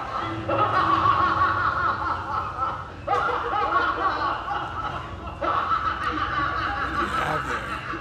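Laughter, snickering and chuckling, coming in three loud stretches that start about half a second, three seconds and five and a half seconds in.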